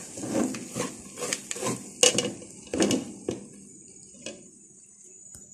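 Metal spatula scraping and knocking against a metal pot while stirring moist brown sugar as it cooks down into syrup. The strokes come thick in the first three seconds, with one more knock about four seconds in, then they stop.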